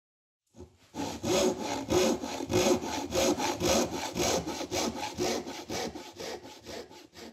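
Hand saw cutting through wood in steady back-and-forth strokes, about three to four a second, growing fainter toward the end.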